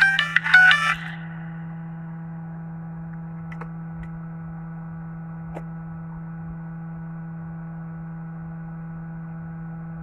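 Jio Phone F220B startup chime: a short electronic jingle of a few bright notes, about a second long, as the phone boots after repair. After it a steady low electrical hum continues, with a couple of faint ticks.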